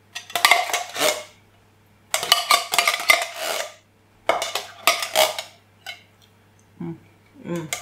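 Metal spoon scraping and clinking against the inside of an opened tin of custard, in three main bouts of a second or so each, with a few fainter clicks after.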